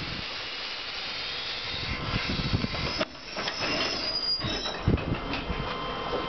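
Compressed air hissing steadily from the air-brake hoses between two coupled vintage electric railcars as they are being uncoupled. It breaks off briefly about three seconds in, then resumes with a thin high whistle for a moment.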